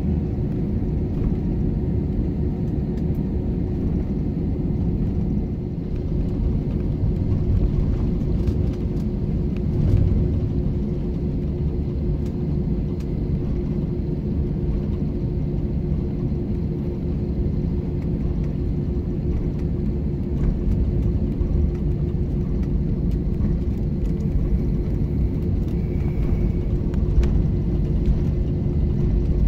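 Cabin noise of an Airbus A321 taxiing, its twin jet engines at low taxi power: a steady low rumble with a constant hum.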